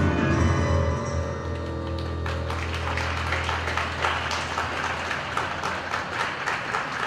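A skating programme's music ends on a held chord and fades, then audience applause starts about two seconds in and carries on.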